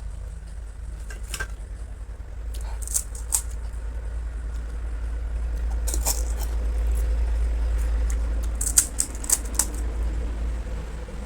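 Pani puri being eaten: scattered sharp crunches and clicks of the crisp puri shells, several in quick succession near the end, over a steady low rumble.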